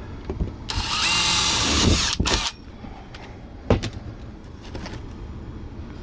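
Cordless drill boring a test hole through a sheet-metal air duct for a temperature probe, a high-pitched grinding burst of about two seconds with a faint rising motor whine, briefly interrupted near its end. A single sharp click follows about a second later, over a low steady hum.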